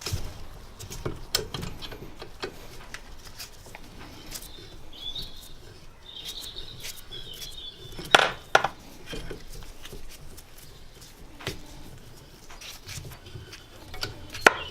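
Valve spring compressor being unwound on a cast-iron cylinder head, letting the valve spring extend: scattered small metallic clicks and taps, with a louder double knock about eight seconds in. Short high squeaks come a few seconds in.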